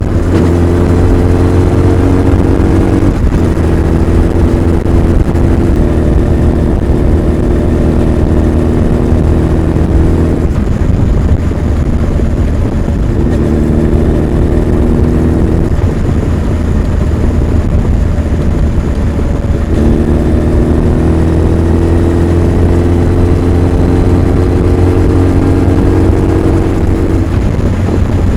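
Honda CB1300 Super Bol d'Or's inline-four engine and exhaust under way at a fairly steady pace. The engine note holds nearly level, drops back about ten seconds in and again later, and picks up again a few seconds after each time.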